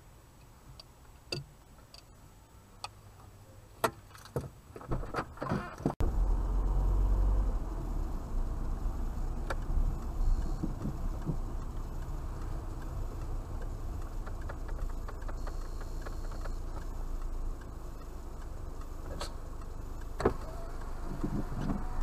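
Sound inside a stationary car. At first there is only a faint background with scattered clicks and knocks. About six seconds in, a steady low rumble of the car idling begins and continues, with an occasional click.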